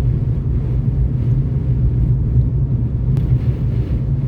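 Steady low drone of a car being driven, heard from inside the cabin: engine and tyre noise, with one faint click about three seconds in.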